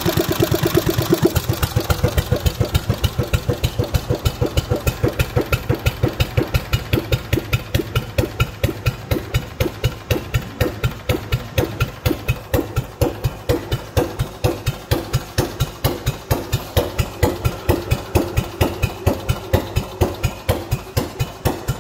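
Clinton single-cylinder, air-cooled four-stroke gasoline engine idling with a slow, even beat of sharp exhaust pulses, running again after five years unused.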